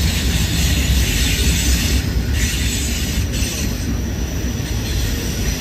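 Norfolk Southern double-stack intermodal container cars rolling past, their wheels giving a steady low rumble on the rails with a hiss above it.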